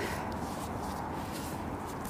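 Steady wind noise and open-air background hiss, with nothing distinct standing out.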